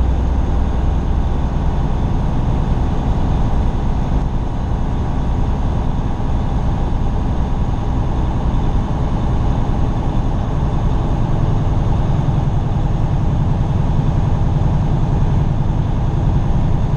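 Semi-truck diesel engine and road noise heard from inside the cab of a Freightliner Cascadia while driving. The low drone is steady and shifts higher in pitch about ten seconds in.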